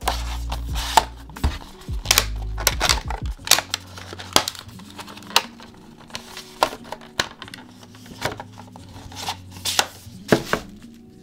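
Irregular sharp taps and clicks of hard objects being handled, with soft background music; heavier low thumps come in the first few seconds.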